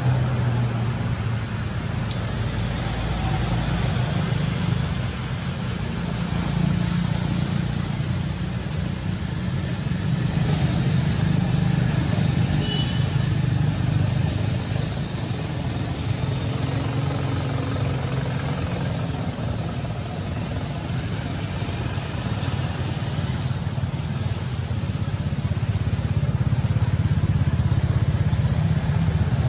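Steady low rumble of motor vehicle engines, swelling and easing slightly but never stopping.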